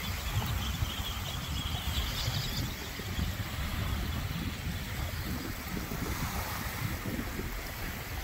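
Wind buffeting the microphone with a fluttering rumble, over small waves washing onto a sandy beach.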